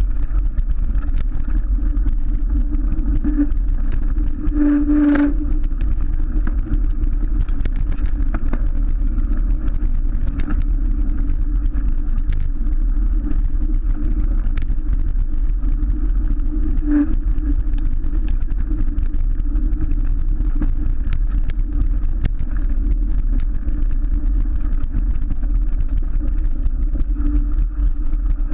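Mountain bike descending a rough dirt track, heard through a bike-mounted GoPro Hero 3 Black: a steady low rumble of wind and vibration with a steady buzzing hum that flares briefly about five seconds in and again near seventeen seconds. Scattered small knocks and rattles come from the bike on the uneven surface.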